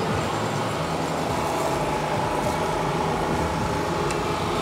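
An engine running steadily, a low continuous hum with no change in pitch, amid street noise.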